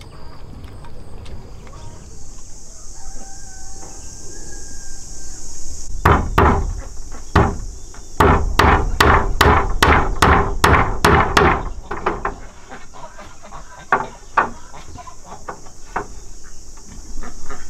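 Hammer knocking on bamboo slats: a quick run of about fifteen sharp strikes at roughly three a second, then lighter, scattered taps. A rooster crows faintly before the hammering, and a steady high-pitched shrill runs underneath.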